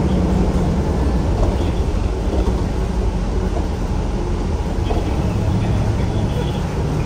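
Steady low rumble of a city bus's engine and road noise, with no change in pitch.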